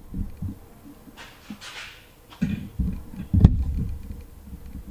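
Handling noise from parts being worked by hand: scattered knocks and rustles, with one sharp click about three and a half seconds in.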